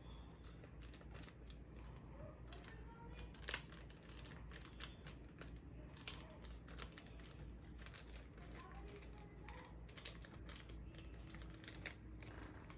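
Faint crinkling and small clicks of a clear plastic specimen bag being handled and sealed shut, with one sharper crackle about three and a half seconds in.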